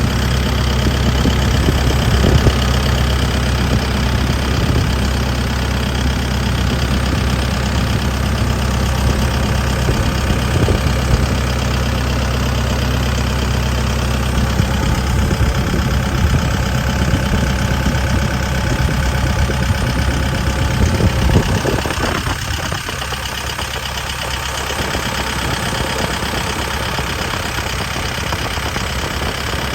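Sumitomo SH120LC-6 hydraulic excavator's diesel engine idling steadily. Its note changes and drops slightly in loudness about two-thirds of the way through.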